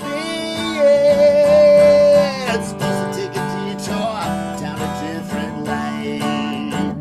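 Double-neck six- and twelve-string acoustic guitar strummed in chords, with a man's voice holding one long sung note from about a second in to just past two seconds, the loudest part, then the strumming carries on.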